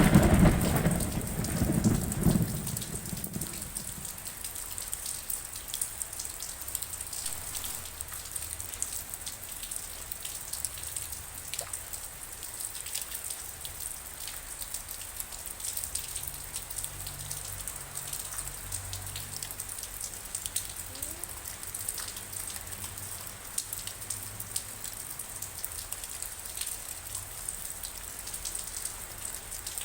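Steady rain falling, with many small drops ticking. A loud low rumble of thunder dies away over the first couple of seconds.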